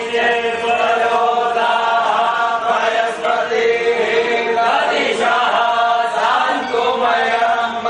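A group of voices chanting Hindu mantras together in unison, a steady recitation on long held notes.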